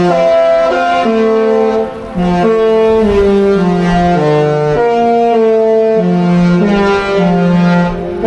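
Disney Treasure cruise ship's musical horn playing a tune: brassy held notes sounding together as chords, stepping from one note to the next, with short breaks about two seconds in and near the end.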